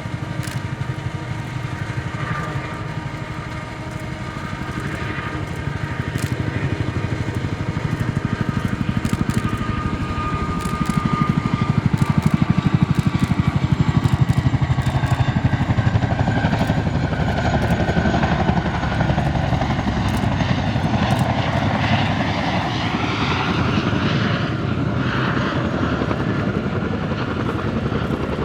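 Boeing CH-47J Chinook tandem-rotor helicopter, its rotors beating in a rapid, steady thudding, growing louder about twelve seconds in.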